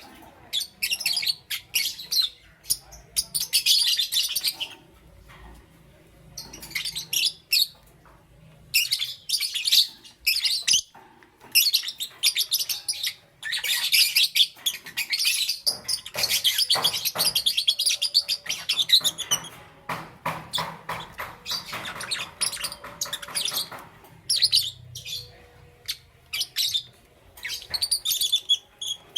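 Lovebirds chirping: rapid, high-pitched chirps and twitters in busy bursts with short pauses between them.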